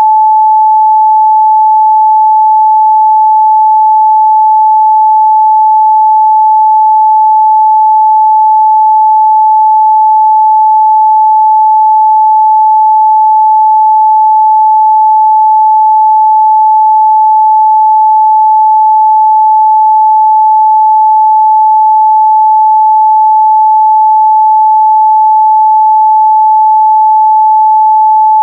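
A pure 867 Hz sine-wave test tone, one steady unchanging pitch held at a constant loud level.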